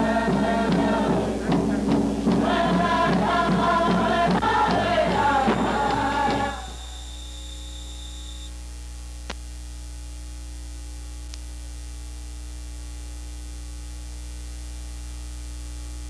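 Group singing over music with a regular beat, which cuts off about six and a half seconds in. What remains is a steady hum.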